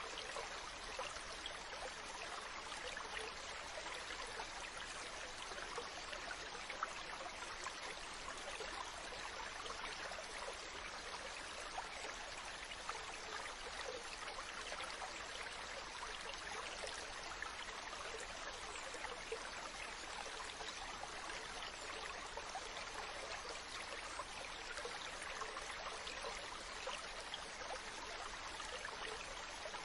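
Mountain stream running over rocks: a steady, even rush of moving water with fine splashing.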